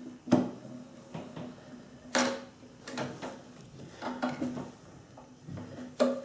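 Sharp metal clicks and knocks from the South Bend drill press head as the quill return spring is wound and its housing set by hand, a handful of strikes, the loudest just after the start and again about two seconds in.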